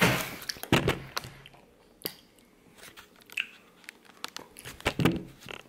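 Crusty po' boy bread and fried oysters crackling as the sandwich is handled and set down on a wooden board: a burst of crackling in the first second, then scattered sharp clicks.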